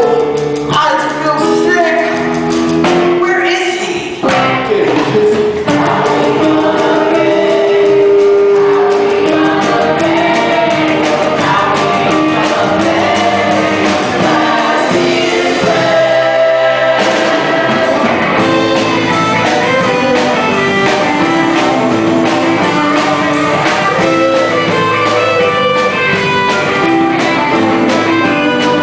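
Musical-theatre cast singing together over a live rock band.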